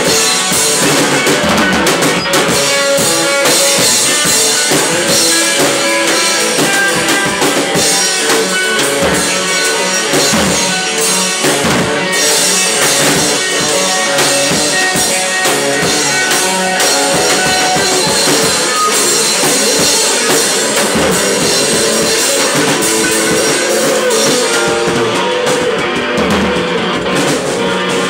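Loud live rock jam: a drum kit played hard with cymbals crashing over and over, together with an electric guitar. The cymbals thin out over the last few seconds.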